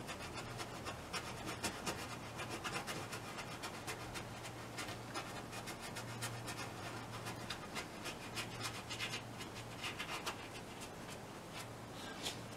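Fan brush dabbing and scratching acrylic paint onto a painting canvas: a run of quick, faint scratchy strokes, dense for the first few seconds and then coming only now and then, over a faint low hum.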